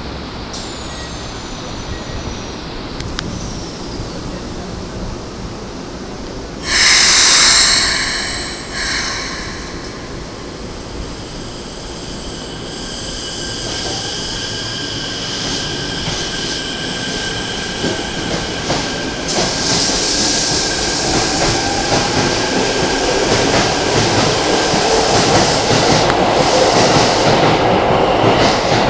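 Keikyu 1000-series eight-car electric train departing a station platform. A sudden loud burst lasting about two seconds comes about seven seconds in. From about twelve seconds the motor whine rises slightly in pitch, with wheel and rail noise growing as the train gathers speed.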